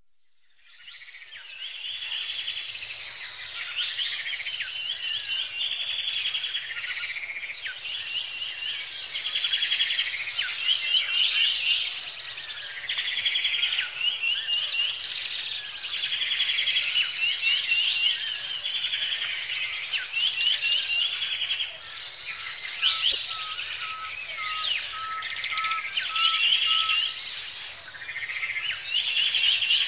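Many birds singing at once, a dense chorus of overlapping chirps, trills and repeated song phrases that fades in over the first couple of seconds. A run of evenly spaced lower notes sounds for a few seconds past the middle.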